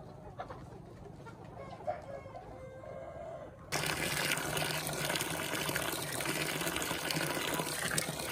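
Chickens clucking, then about halfway through a sudden, steady splashing of a thin stream of water running into a plastic basin.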